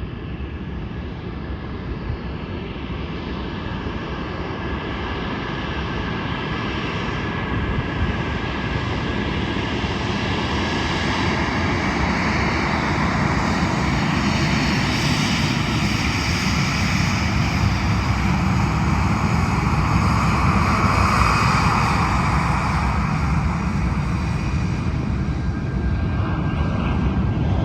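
Jet engines of a Boeing 737-8 airliner (CFM LEAP-1B turbofans), a steady whine over a broad rumble, growing gradually louder as the aircraft comes closer.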